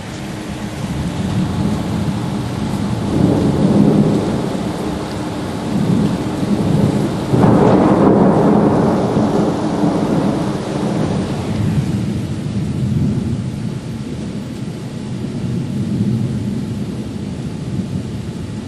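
Heavy thunderstorm: steady heavy rain with rolling thunder. A first rumble swells about three seconds in, and a louder peal about seven seconds in rumbles on and fades over several seconds.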